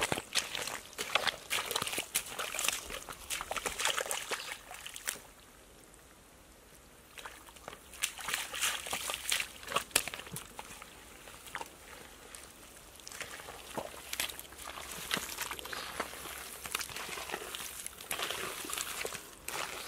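Wet mud squelching and sloshing as feet wade through it and gloved hands dig into it, in irregular bursts with a short lull about six seconds in.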